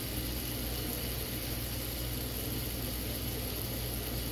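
Diced onions sizzling gently in oil and Marsala sauce in a frying pan on low heat, a steady fine crackle, over a steady low hum.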